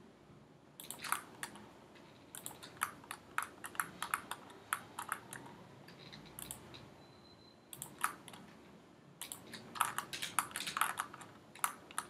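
Computer keyboard and mouse clicking in quick, irregular runs with short pauses between them.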